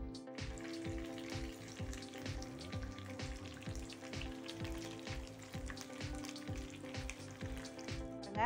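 Marinated chicken pieces shallow-frying in oil in a pan: a steady sizzle with fine crackling. Soft background music with a steady beat plays underneath.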